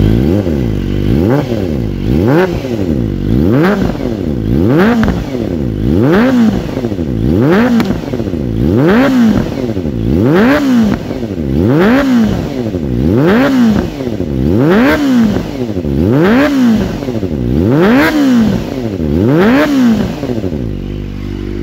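Kawasaki ZX-25R's 249 cc inline-four engine, through a long-canister Over Racing Japan exhaust, revved repeatedly in quick throttle blips at a standstill, each rising to about 8,000–10,000 rpm and dropping back toward idle.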